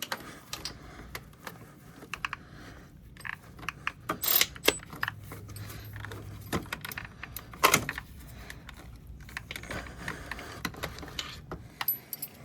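Metal hand tools and sockets clinking and clicking irregularly while a 13 mm socket is picked out and put to work on a bolt, with a few sharper clanks about four and seven and a half seconds in.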